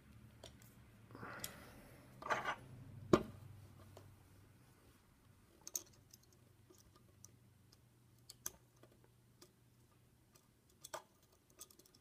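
Rustling handling noise and a sharp knock about three seconds in as the U-lock is moved into position, then faint, irregular metallic clicks of a pick and tension tool working the pins of a five-pin dimple lock cylinder during single-pin picking.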